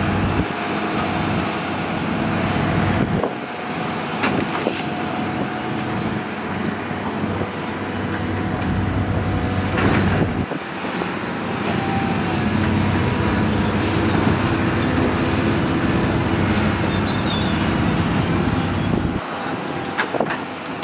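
Hydraulic excavator's diesel engine running steadily under load as it digs and swings mud, with a few sharp clanks.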